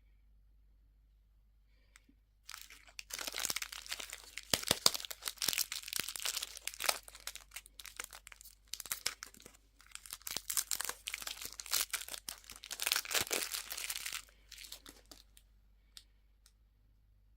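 A candy wrapper being crinkled and torn open by hand, in two long spells of crackling, followed by a few small clicks.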